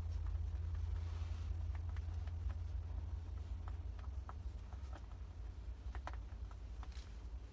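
Rabbits chewing fresh leafy greens: scattered faint crunching clicks over a steady low rumble.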